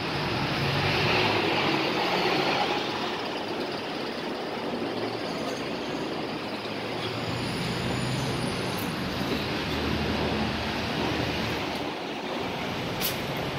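Street traffic: passing cars and a bus give a steady hum of engines and tyres on the road, loudest in the first few seconds. A single short click sounds near the end.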